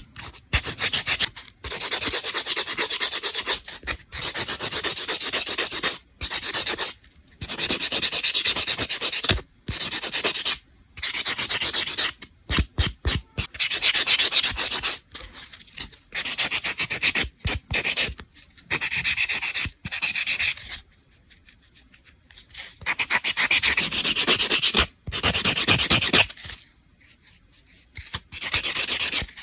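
Nail file rubbing across fingernails in repeated bursts of quick strokes, broken by short pauses.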